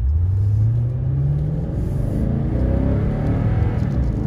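Truck engine accelerating, rising in pitch over the first second and a half, then running on steadily under load.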